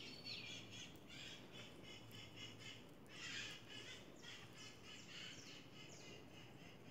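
Faint bird calls in the background: quick repeated high chirps with a few short falling notes.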